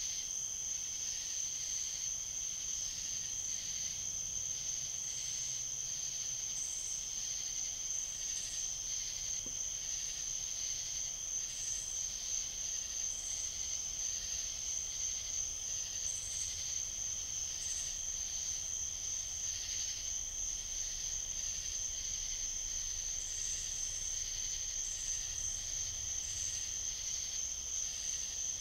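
Steady night chorus of insects, crickets among them: a continuous high-pitched trill over a lower, pulsing layer, with scattered short higher chirps.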